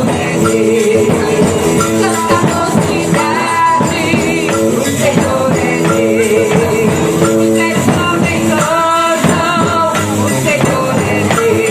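Live worship band music with tambourine and singing.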